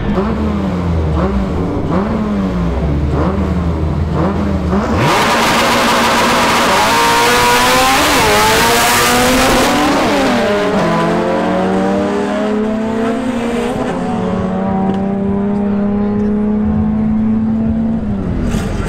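Two compact import drag cars, one a Honda Civic hatchback, revving their engines up and down at the line. About five seconds in they launch at full throttle, the engine pitch climbing and dropping back at each upshift. Later the engines settle into a steadier pull and fade as the cars run away down the strip.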